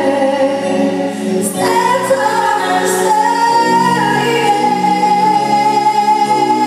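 A woman singing live into a microphone through the PA, holding long notes, over a rock band of keyboards, electric guitars and drums.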